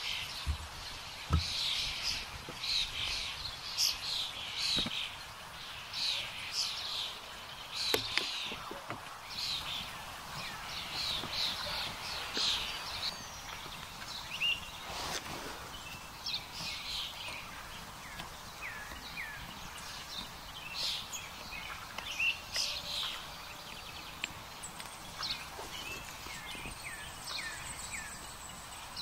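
Woodland birds singing: many short chirps and trills overlap throughout. A couple of sharp wooden knocks come about a second in as split firewood is dropped onto a campfire.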